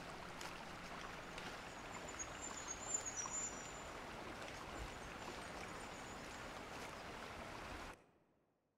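Steady rush of a forest stream over rocks, with faint high chirping about three seconds in. The sound cuts off suddenly near the end.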